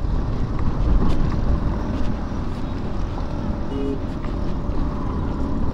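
Steady low rumble of wind and road noise while riding an electric scooter over a potholed road, with no engine sound to speak of. A short, faint beep is heard about four seconds in.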